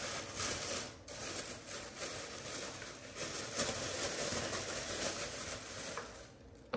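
A clear plastic bag rustling and crinkling as a hand rummages in it and pulls out lumps of jaggery; the rustling dies away near the end.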